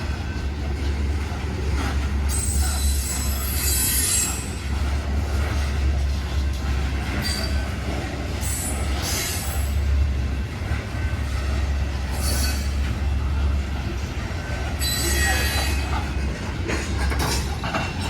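Loaded coal cars of a freight train rolling slowly past, steel wheels squealing against the rail in several high-pitched spells over a steady low rumble.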